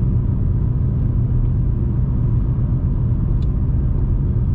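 Steady low rumble of a car heard from inside the cabin: engine and road noise while driving.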